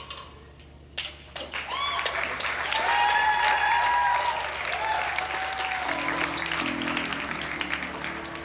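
An audience clapping and cheering after a song in a live rock set, with voices whooping over the applause. From about six seconds in, an instrument on stage holds low steady notes under the clapping.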